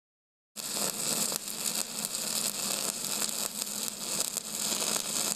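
MIG welding arc crackling and sizzling steadily, starting about half a second in, with a faint steady hum beneath.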